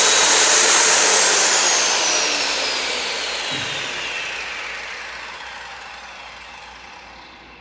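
DeWalt direct-drive circular saw running free with no cut, for an inspection test run. Its high whine peaks about a second in, then slowly drops in pitch and fades.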